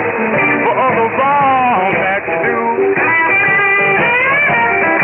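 Guitar-led rock music received over shortwave AM radio, with bending guitar notes. The narrow AM channel cuts off everything above about 3 kHz, so it sounds muffled and without treble.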